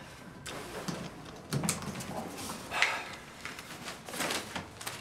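Handling and movement noise from a person shifting in a chair and bending toward the floor: a few scattered rustles and light knocks.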